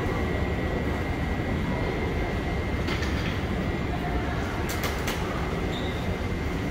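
Alstom Citadis tram running through the station: a steady rumble with a thin, steady high whine, and sharp clicks of the wheels over rail joints about three seconds in and again near five seconds.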